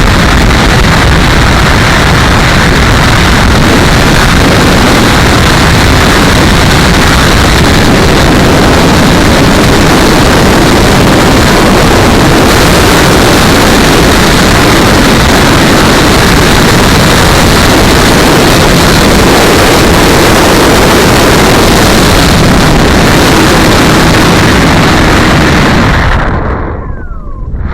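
Loud, steady wind buffeting the microphone, a rough rushing noise with no clear tone. It drops away briefly near the end.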